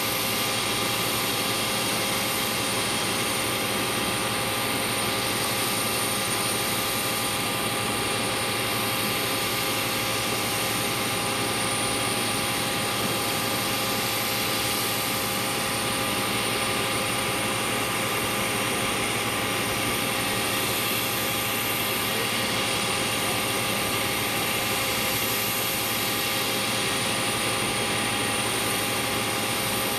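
Steady whine and rush of a parked jet airliner's turbine, several constant tones over a hiss that does not change, typical of the auxiliary power unit running at the stand.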